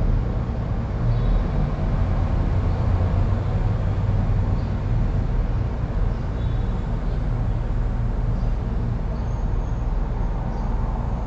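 Steady low rumble of background noise with no distinct events.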